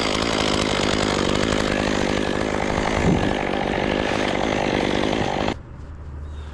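Chainsaw running at full throttle, cutting into tree wood. It stops suddenly about five and a half seconds in.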